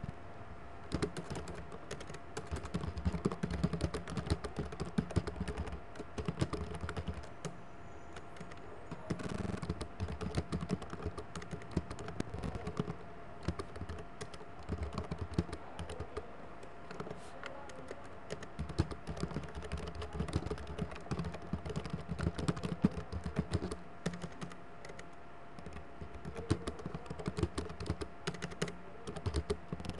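Typing on a computer keyboard: runs of rapid key clicks broken by a few short pauses.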